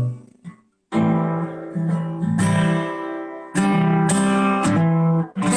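Acoustic guitar strumming the song's closing chords: after a brief pause about a second in, several chords are struck one after another and each is left to ring.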